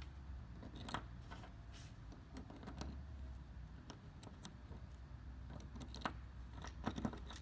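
Scattered light clicks and clinks of small metal hardware (a bolt, pins and nylock nuts) and a plastic cam cleat being handled and fitted together by hand, over a faint steady low hum.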